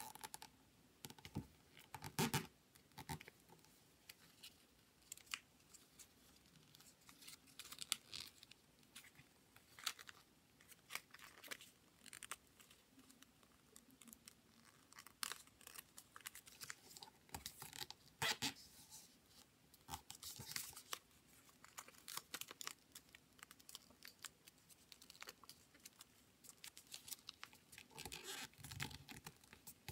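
Faint rustling and crinkling of origami paper as it is folded and creased by hand, in short, irregular crackles.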